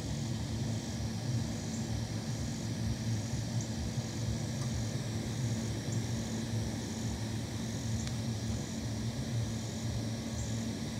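A vehicle engine idling steadily with a low hum, with a faint high, pulsing buzz over it.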